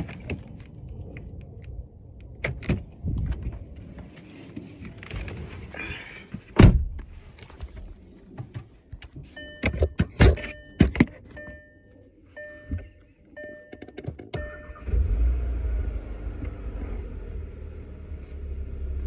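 Knocks and thunks from someone getting into the car, the loudest about six and a half seconds in. Then a dashboard chime beeps about twice a second for some five seconds. About fifteen seconds in, the 2022 Volkswagen Jetta GLI's turbocharged 2.0-litre four-cylinder starts and settles into a steady idle after its fresh oil change.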